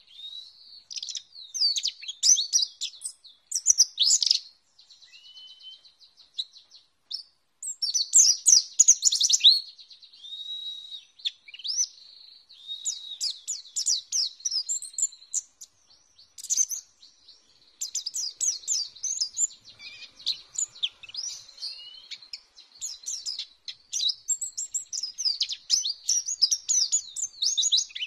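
White-eye (pleci) singing: rapid, high-pitched twittering phrases in bursts of a few seconds, broken by short pauses, with a thin steady high tone running beneath.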